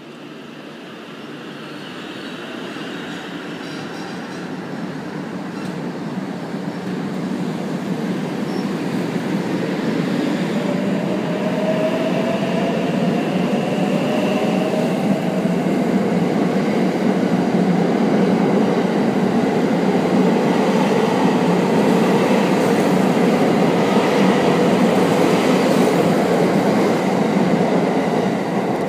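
683-series electric multiple unit pulling out of a station and gathering speed past the platform. The rumble of wheels and running gear grows steadily louder, and partway through a motor whine rises in pitch.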